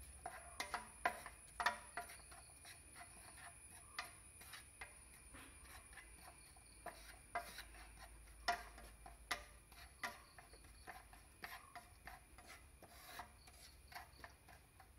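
A spatula scraping and knocking against a nonstick frying pan as dry spice powders are stirred and roasted, in irregular strokes with sharper knocks now and then.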